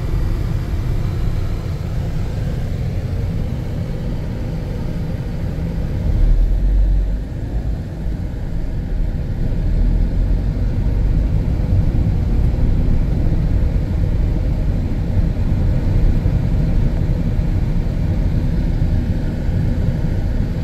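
Steady low rumble of a moving road vehicle, road and wind noise without speech, with a louder swell about six seconds in.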